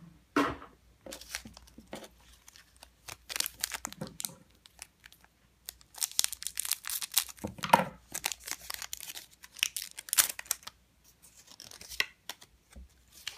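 Scissors cutting open a foil Pokémon booster pack, the foil wrapper crinkling and rustling in irregular bursts as the pack is handled and the cards are pulled out.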